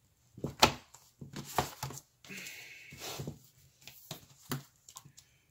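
Sticker books and paper being handled on a wooden desk: a run of light taps and papery rustles, with a longer scrape of paper sliding about two seconds in.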